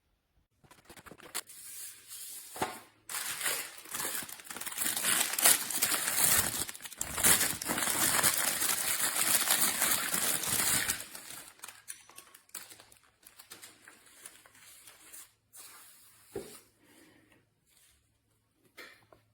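Packaging being handled and unwrapped: crinkling and rustling, loudest and most continuous for several seconds in the middle, then scattered small clicks and handling noises.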